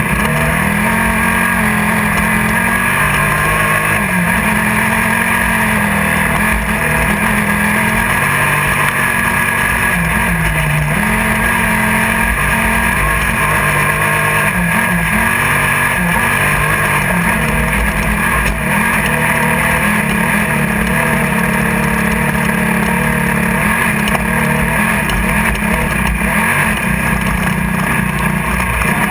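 Class 1600 desert race buggy's air-cooled VW 1600 engine running hard, heard from inside the car. Its pitch rises and falls with throttle and gear changes over a steady rushing noise.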